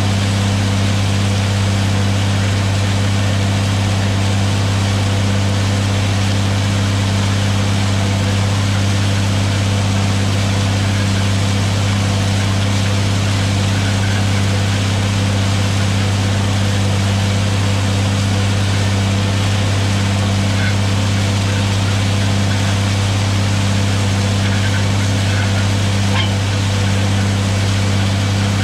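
John Deere 4555 tractor's six-cylinder diesel running at a steady, even speed while pulling a disk through corn stalks, a constant low drone with no change in pitch or level.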